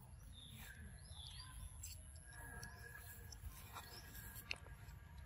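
Faint outdoor ambience: a steady low rumble with a few soft, short high chirps and light clicks scattered through it.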